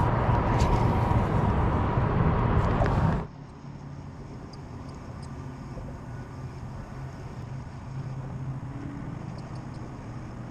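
Steady low hum of an electric MotorGuide trolling motor pushing a kayak. For the first three seconds it is nearly buried under loud rumble and rustle on the microphone, then it continues at a much lower level with faint ticks.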